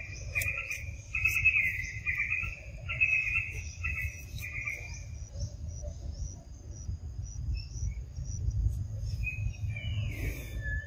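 Insects chirping in repeated short trilling bursts, a quick run of them through the first five seconds and again near the end. Under them runs a fainter, faster, steady higher-pitched pulsing, over a low rumble.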